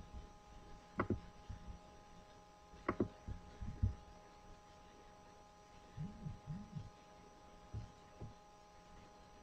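Steady electrical hum with a few scattered knocks and thumps: two sharper knocks about one and three seconds in, then softer low bumps later on.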